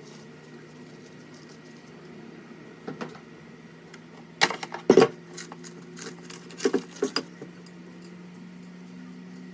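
Kitchenware clinking and knocking: a single knock about three seconds in, a loud cluster of clatters around the middle, and a few more shortly after, over a steady low hum.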